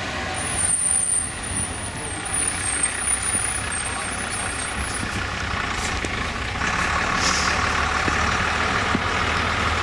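A fire brigade aerial ladder truck drives slowly toward the listener. Its engine and its tyres on the wet pavement grow louder as it comes closer. A thin, high whistle sounds through the first half.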